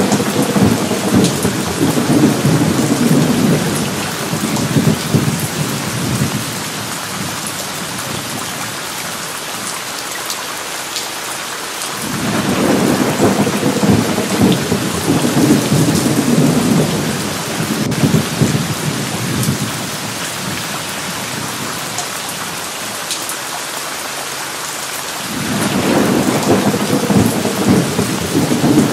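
Steady rain with rolling thunder. Three long rumbles come through the rain: one at the start, one about twelve seconds in and one near the end, each lasting several seconds.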